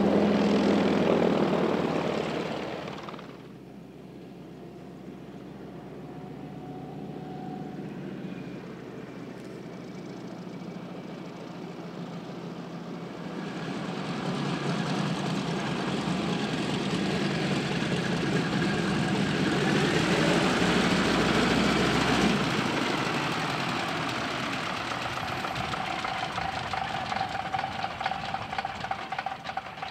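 Radial engine of a Mitsubishi Zero replica running as the plane taxis, propeller turning. It drops away sharply about three seconds in, swells louder past the middle, then fades toward the end.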